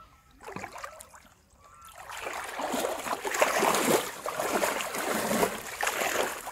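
Shallow river water sloshing and splashing around a person's legs as he wades through it. It is brief and lighter in the first second or so, then grows louder and continuous from about two seconds in.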